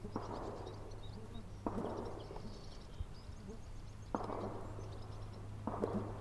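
Distant pistol shots from a shooting range, four in a few seconds at uneven spacing, each followed by a rolling echo. Faint birdsong chirps between the shots.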